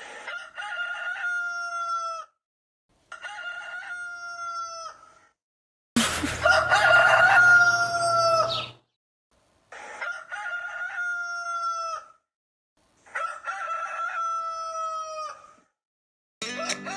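Rooster crowing cock-a-doodle-doo five times, about every three and a half seconds, each crow lasting about two seconds; the third crow is the loudest.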